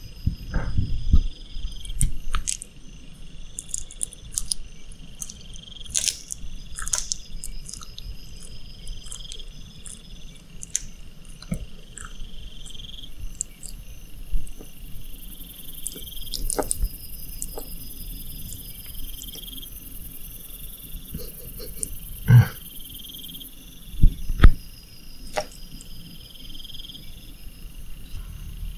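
Bearded dragon chewing a small lizard, with sharp crunches and crackles in the first few seconds. Behind it runs steady chirping in regular pulses, and there are three loud knocks about two-thirds of the way in.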